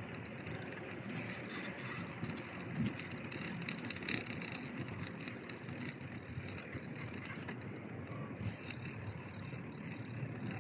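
Bicycle being ridden: steady rolling noise, with a high ticking buzz from the coasting freewheel that stops for about a second past the middle.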